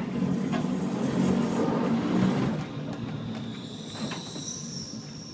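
Glasgow single-decker electric tram pulling away under power: a low, steady motor hum, loudest in the first half and easing off, with a high-pitched squeal coming in about three and a half seconds in.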